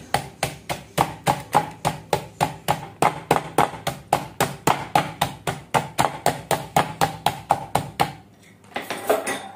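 Metal meat mallet pounding chicken pieces through a plastic bag on a wooden chopping board: steady strikes about four a second, flattening the meat so the marinade can soak in. The pounding stops about eight seconds in.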